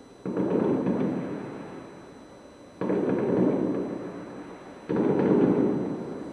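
Aerial firework shells bursting about 1.3 km away: three sudden booms, roughly two seconds apart, each followed by a rolling rumble that dies away over a second or two.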